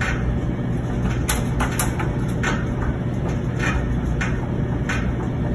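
A cat moving inside the stainless steel drum of a front-loading washing machine: irregular knocks and clicks over a steady low hum.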